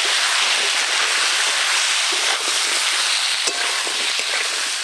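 Potato and pointed gourd pieces sizzling steadily as they fry in oil in an aluminium kadai, stirred with a metal spatula that knocks against the pan a couple of times late on.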